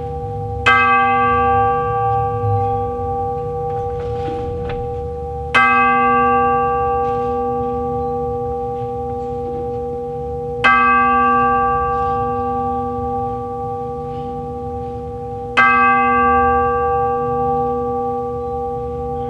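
Orchestral chimes (tubular bells) struck with a mallet four times, about five seconds apart, each stroke ringing on and fading into the next. A slow memorial toll.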